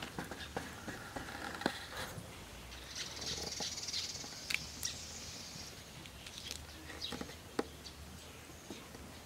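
Small knife and hands working ingredients by hand: scattered sharp clicks and light knocks, with a scratchy scraping hiss lasting about two seconds from about three seconds in.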